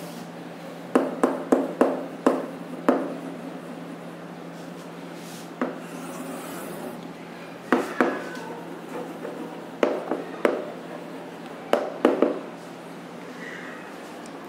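Chalk writing on a blackboard: clusters of sharp taps and short scratchy strokes as letters are written and table lines are ruled, with pauses between the clusters.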